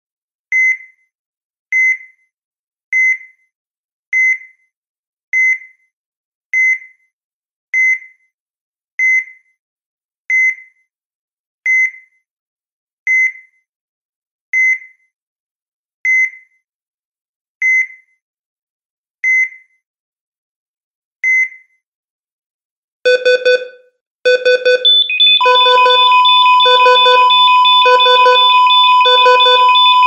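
Electronic heart monitor (ECG) beeping: single short high beeps, about one a second at first, coming gradually further apart and then stopping. After a short pause, a louder pulsing alarm of lower, several-note beeps starts near the end, and a steady continuous tone sounds under it.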